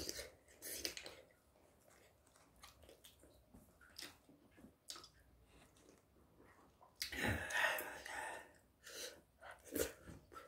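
Quiet chewing and mouth sounds of a person eating spicy braised dried pollack with rice cake, with scattered small clicks and a louder noisy stretch about seven seconds in.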